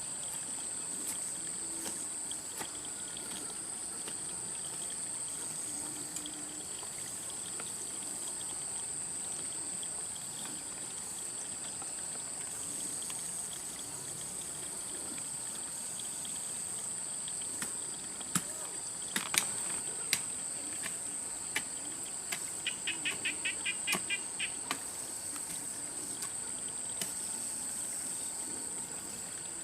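Steady high-pitched insect chorus, typical of crickets. About two-thirds of the way through come a few sharp clicks and a quick rattling run of ticks.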